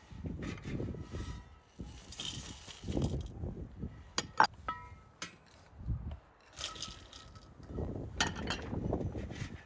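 Dried fruit poured from a porcelain plate into an enamel basin: raisins and barberries pattering and rattling onto the enamel in several separate pours, with one sharp ringing clink about halfway through.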